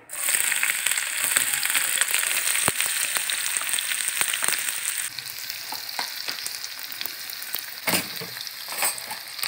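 Chopped onions sizzling in hot cooking oil in a non-stick pan, the sizzle loud as they go in and easing about five seconds later. A few sharp knocks, two of them near the end.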